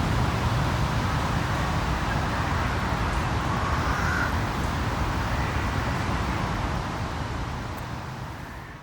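City park ambience: a steady rumble and hiss of distant road traffic on a built-in camera microphone, with a short faint call about four seconds in. It fades out near the end.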